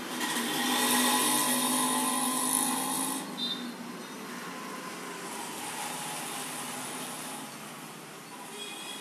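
Potter's wheel spinning at speed, a steady mechanical whir that is loudest for the first three seconds and then settles to a quieter even hum.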